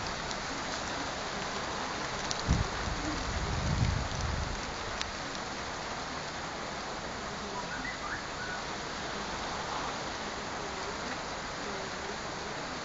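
Steady, even hiss of background noise, broken by a sharp low bump about two and a half seconds in and a longer low rumble a second later.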